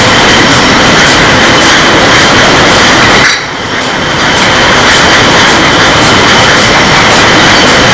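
Beer bottling line running: a loud, steady machine din with a rapid, regular clatter of glass bottles on the conveyors. It drops briefly about three and a half seconds in.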